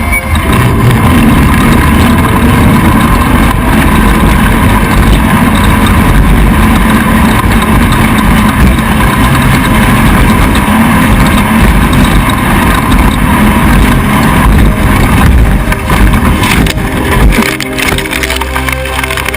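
Off-road race vehicle's engine running hard, loud and steady.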